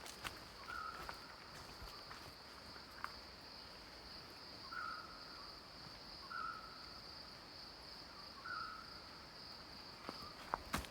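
Steady high-pitched drone of rainforest insects, with a short call repeated four times at a lower pitch. Footsteps start again near the end.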